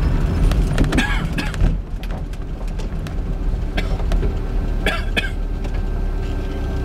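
Lotus Elise driving along, its engine and road noise heard from inside the cabin as a steady low rumble that eases a little about two seconds in. A few short sharp clicks or knocks cut through it.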